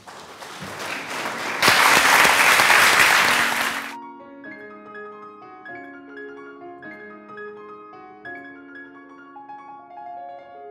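Audience applauding, growing louder, then cut off abruptly about four seconds in; solo piano music follows.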